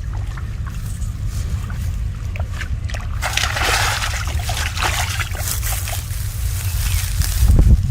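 Shallow water splashing and sloshing, heaviest from about three to six seconds in, over a steady low rumble.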